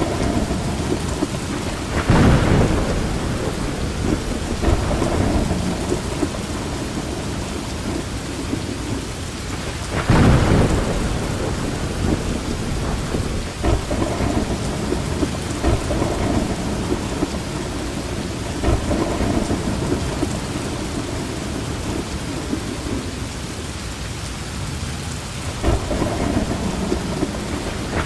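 Heavy rain falling steadily, with louder surges about two seconds in, around ten seconds in, and again near the end.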